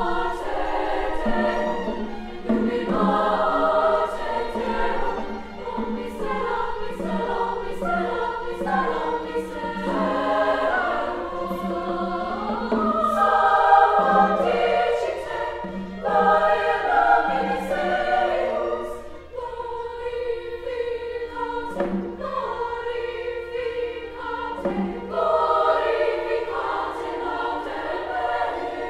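SSAA women's chorus singing a sacred choral piece in many parts, in short rhythmic phrases.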